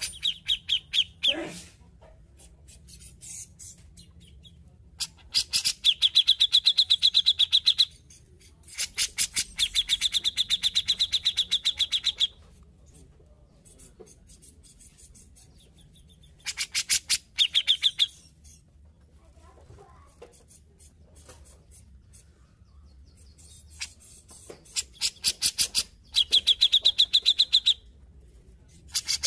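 Cucak jenggot (grey-cheeked bulbul) calling in loud bursts of rapid, chattering repeated notes, five bursts of one to four seconds each with short pauses between.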